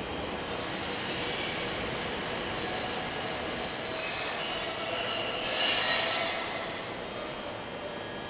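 Steel wheels of a Nagano Electric Railway 8500 series train squealing against the rails: several high, shifting screeching tones over the rolling noise, setting in about half a second in and fading near the end.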